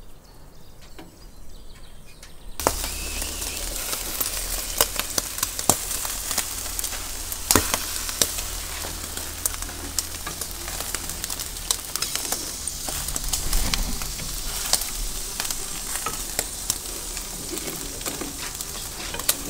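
Skewered pieces of heart meat sizzling over hot charcoal, a dense steady hiss with scattered sharp crackles and clicks. The sizzling comes in suddenly a couple of seconds in, after a quieter start.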